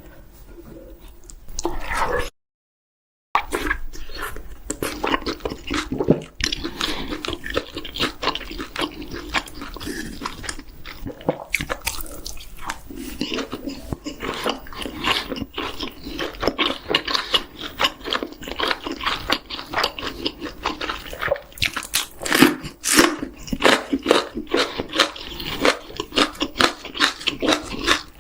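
Close-miked mukbang eating sounds of a person biting and chewing chicken: dense, irregular wet smacks and crunches, broken by a sudden second of silence about two seconds in.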